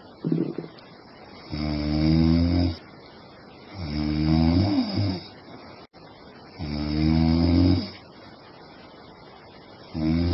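A woman snoring in her sleep. One short snore at the start is followed by long, deep snores roughly every two and a half seconds, with quieter breathing in between.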